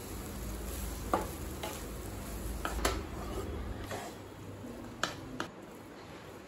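Wooden spatula stirring and tossing cooked rice with potato in a nonstick kadai: soft scraping of rice against the pan with a few scattered light knocks and scrapes, over a faint sizzle.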